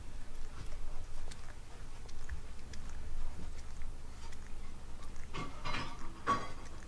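A cat grooming another cat's head with its tongue: soft, wet licking clicks, with two louder short pitched sounds near the end.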